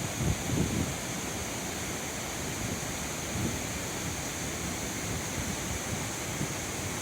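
Fukiware Falls' water rushing in a steady, even roar. A few low gusts of wind hit the microphone in the first second.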